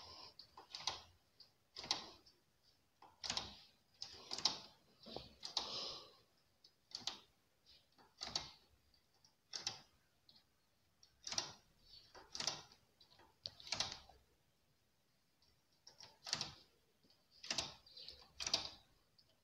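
Irregular light clicks and taps of a knitting machine's metal needles and latches as the folded piece is worked onto the needle bed by hand, with a short pause about three quarters of the way through.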